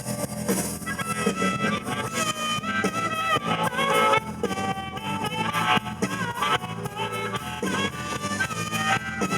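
Live blues band playing an instrumental break: a harmonica solo of bending, held notes over guitar, bass and drums.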